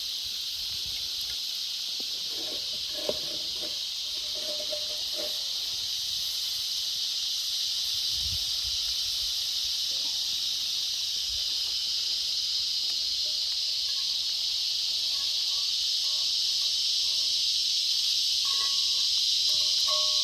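Fish sizzling over a campfire, a steady hiss that grows slightly louder towards the end.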